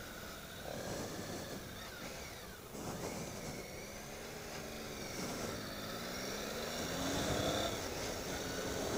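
Triumph Tiger 800 XCx's inline-three engine pulling away from walking pace and accelerating. Its pitch rises, dips briefly at a gear change about halfway through, then climbs again.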